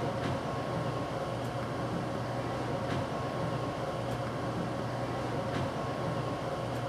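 Steady low mechanical hum with a faint hiss and a thin steady higher tone: room tone in a small room.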